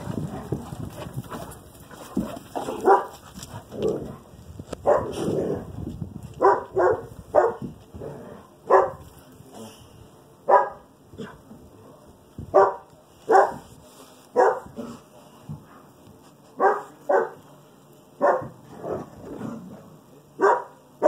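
A dog barking over and over, short barks about once a second at an uneven pace, sometimes two in quick succession.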